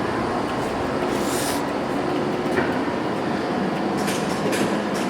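Steady mechanical running noise from a large Ticino geared-head gap lathe's drive, with a few light clicks.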